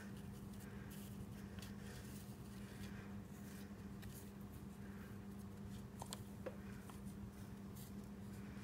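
Faint rustling and light taps of fingertips pressing flakes of gold leaf onto a glued paper edge, over a low steady hum. A couple of small clicks come about six seconds in.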